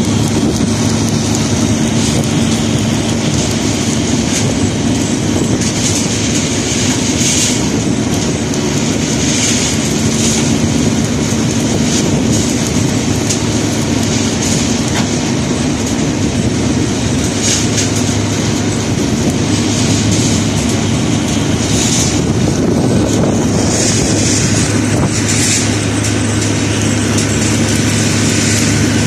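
Steady drone of construction-site machinery with a constant low hum, and short bursts of high hiss every few seconds.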